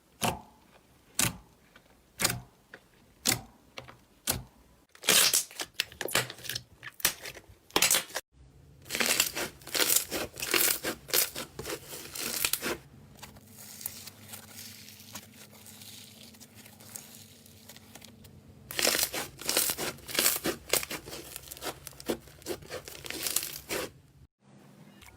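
Slime being squeezed and pressed by hand, giving crisp popping and crackling: single pops about once a second at first, then spells of dense crackling across a few short clips.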